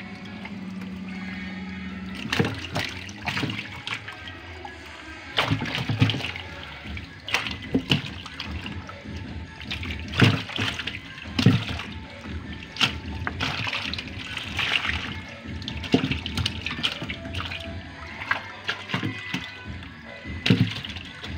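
Many small fish thrashing in shallow water in a plastic bucket, with irregular splashes and sloshing every second or so.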